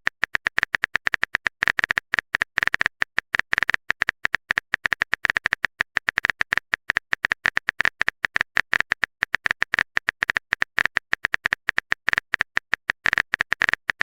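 Rapid, irregular clicking of a keyboard typing sound effect, many taps a second at an even level.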